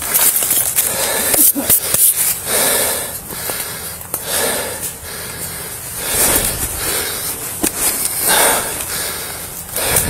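Dry branches and leaf litter crunching and snapping as a person pushes through thick brush on foot, with heavy breathing swelling every few seconds.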